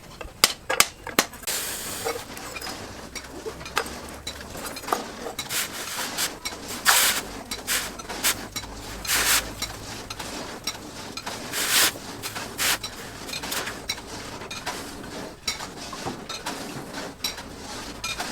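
Irregular light metal taps and clinks, with a few longer scraping strokes, from hand work on a steel knife blade.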